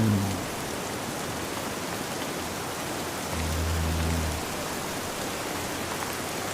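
Steady rain with a man snoring: low, droning snores about every four seconds, one fading out just as the sound begins and another lasting about a second, starting some three seconds in.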